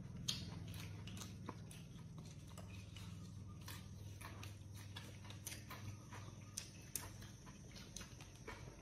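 Eating sounds: irregular small clicks and smacks from chewing, and chopsticks tapping a porcelain rice bowl, over a low steady hum that fades near the end.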